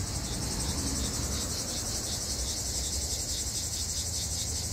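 Insects chirring in a steady high-pitched chorus that pulses evenly several times a second, over a low rumble.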